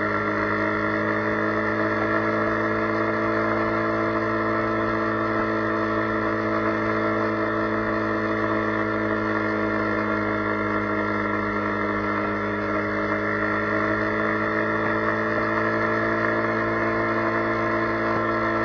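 Motorcycle engine droning steadily at cruise. Its pitch climbs slowly as the speed rises, then dips right at the end as it eases off, over a steady hiss of wind and wet road.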